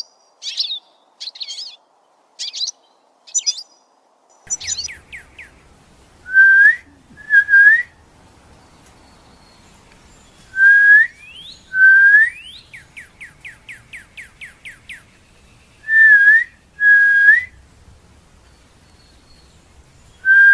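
Goldfinch twittering in about five short, high bursts. After about four and a half seconds a different recording takes over, with a low hum under loud, clear whistled notes that rise at the end, mostly in pairs, and a fast run of about ten rising chirps partway through.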